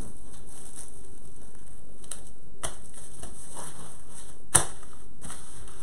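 Plastic cling film crinkling as hands wrap and press it around two balls of dough, with a few sharp crackles, the loudest about four and a half seconds in, over a steady hiss.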